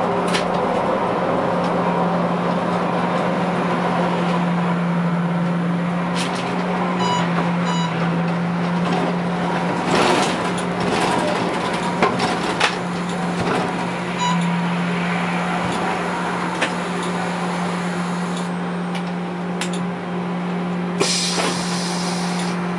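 Škoda 15TrM trolleybus heard from the cab: a steady electric hum over running noise as it drives and slows to a stop at the kerb, with a few knocks around the middle and a short hiss near the end.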